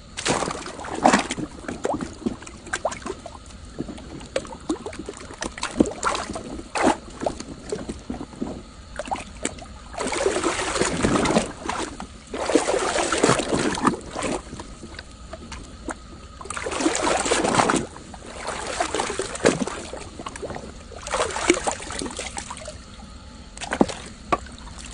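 A muddy toy truck being washed by hand: water splashing and sloshing in several bursts of a second or two, between knocks and clicks of the toy being handled.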